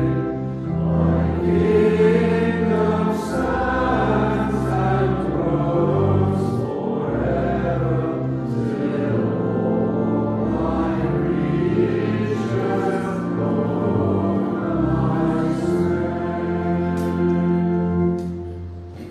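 A hymn sung by voices over held accompanying chords, the entrance hymn of a Mass. It dies away near the end.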